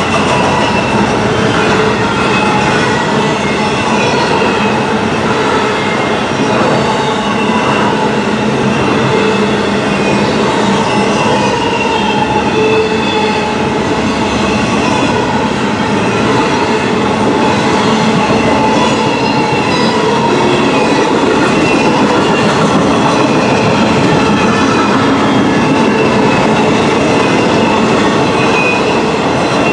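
Intermodal container train's cars rolling past: a steady loud rumble of steel wheels on the rails, with thin high wheel squeals over it.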